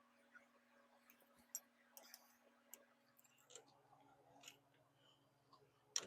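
Near silence, broken by faint, irregular clicks and small knocks of hand tools and caliper parts being handled, with one sharper click near the end.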